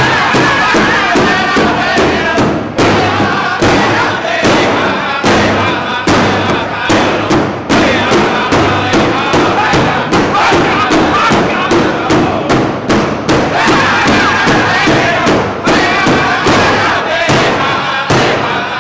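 Powwow drum group singing an honor song: several men's voices singing together over a large shared drum struck in a steady beat.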